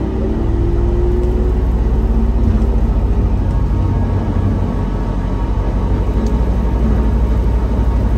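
Heard from inside the car: a rubber-tyred automated airport people mover running along its elevated guideway, with a steady low rumble from the wheels and running gear. A faint motor whine rises over about the first second.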